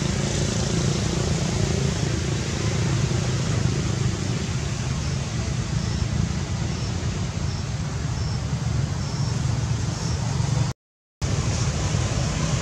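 Steady outdoor background drone: a low rumble with hiss over it. From about the middle, faint high chirps repeat about every three-quarters of a second, and the sound cuts out completely for about half a second near the end.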